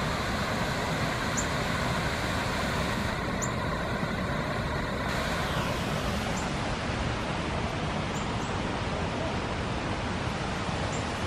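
Steady rushing outdoor noise, with a short high bird chirp every second or two.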